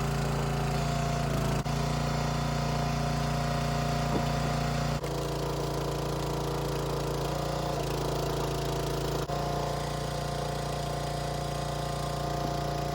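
Small gasoline engine of a 27-ton Dirty Hand Tools log splitter running steadily.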